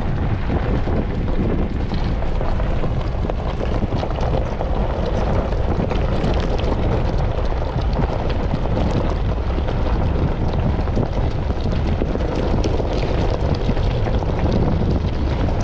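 Steady, loud wind buffeting the microphone, a low rumble with hiss that never lets up.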